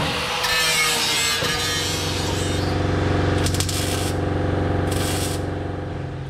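Wire-feed (MIG) welder laying short welds on sheet-metal patch pieces and brackets: three spells of crackling hiss, the first about two seconds long and the other two shorter, over a steady machine hum.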